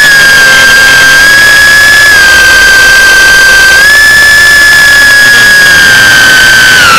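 Tiny Whoop micro quadcopter's motors whining in flight at a high, steady pitch that steps with the throttle: slightly lower about two seconds in, higher again about four seconds in, and dropping near the end.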